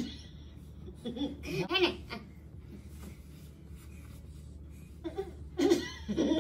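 Short bursts of laughter, twice: one about a second in and another near the end.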